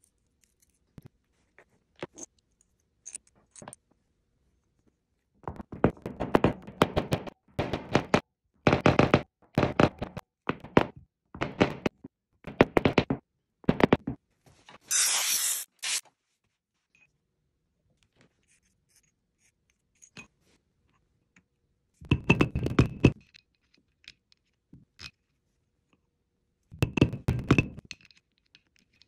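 A rubber mallet tapping an angular contact bearing into a steel housing plate: several runs of rapid knocks. A brief hiss follows about halfway through, and two more short bursts of quick clicking and knocking come near the end.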